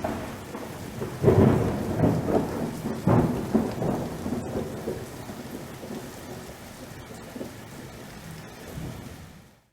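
Steady rain with a thunderstorm: about a second in, a peal of thunder breaks with several loud rolls over the next few seconds, then rumbles away, leaving the rain alone. The sound fades out just at the end.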